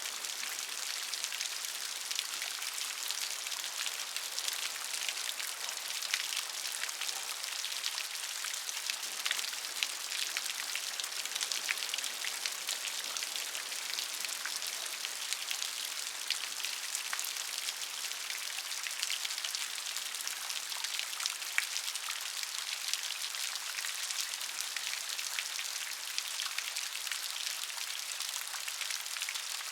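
Steady rain, many small drops pattering and ticking on a surface over an even high hiss.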